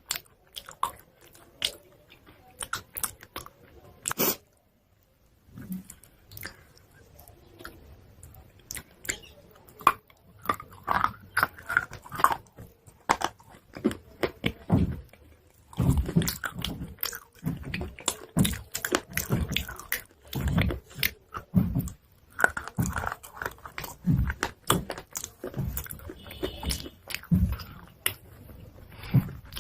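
Close-miked biting and chewing of chalk pieces: a run of sharp, dry crunches. There is a short pause about five seconds in, and the crunching is busier and louder in the second half.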